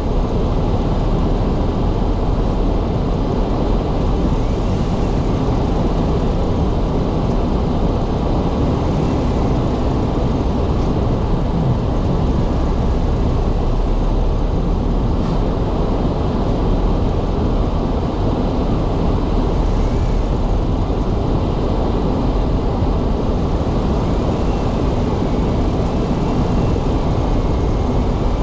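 Car driving steadily on a snow-covered road: a constant rumble of tyres and engine.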